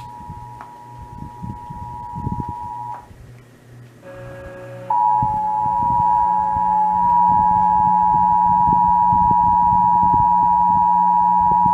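Emergency Alert System attention signal, the steady two-tone alarm of about 853 and 960 Hz, coming over radio receivers. A fainter tone stops about three seconds in; after a short gap a much louder one starts and holds.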